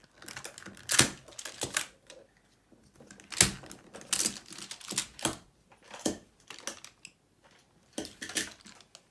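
Plastic magnetic building tiles clacking together as they are handled and set into place: a dozen or so sharp, irregular clicks with short pauses between them.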